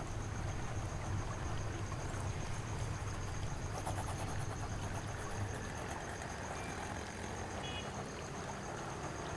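Outdoor ambience: a steady low rumble under a constant high, pulsing insect drone, with a faint short chirp near the end.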